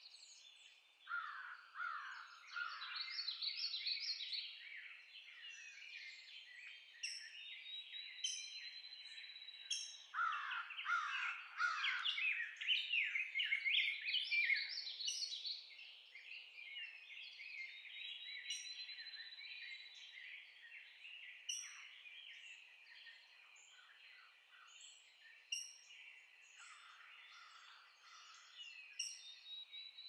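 Dawn chorus of several songbirds singing over a wet woodland pond. A thin, high, even trill of about two seconds repeats roughly every ten seconds, and louder bursts of overlapping song come about a second in and again around ten seconds in.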